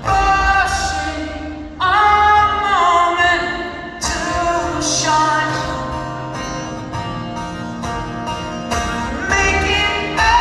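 Live rock band performance: long held sung notes, some of them sliding in pitch, over guitar accompaniment.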